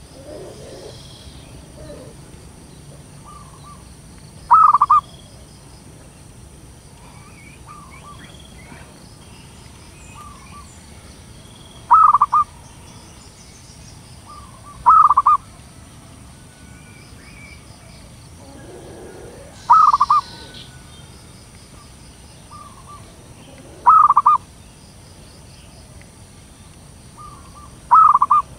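Zebra dove (perkutut) calling: six short, loud bursts of quick cooing notes, one every three to five seconds, with fainter single coos in between.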